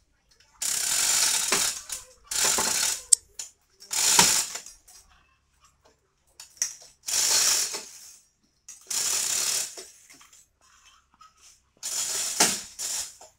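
Hand-operated chain hoist ratcheting in about six short bursts as it is worked, its pawl clicking and its chain rattling. The hoist is tensioning a chain that pulls a crash-dented inner front fender back into shape.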